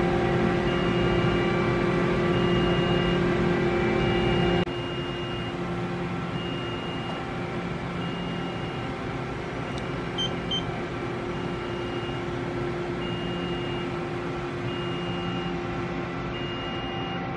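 Steady electrical and mechanical hum of a powered-up Mori Seiki NH4000 DCG CNC horizontal machining centre, made of several held tones, with a short high electronic beep repeating about every second and a half. The hum drops in level about a third of the way in, and there is a faint click about ten seconds in.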